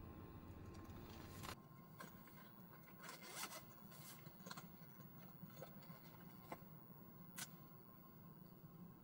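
Faint handling noise of hands working small objects at a table: a few short scrapes and clicks, a sharp click about a second and a half in, a little cluster of scrapes around the middle, and two single ticks near the end.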